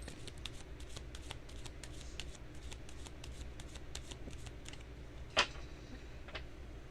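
Tarot cards being shuffled by hand: a steady run of quick, soft card flicks, with one sharper snap of the cards about five and a half seconds in.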